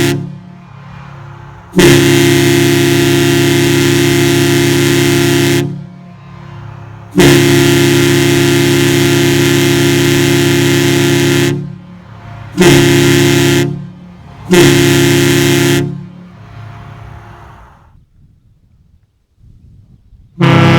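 Kahlenberg T4 bronze three-chime ship horn sounding one deep chord in separate blasts: two long blasts of about four seconds each, then two short ones of about a second. Another blast begins near the end. A faint hiss fills the gaps between blasts.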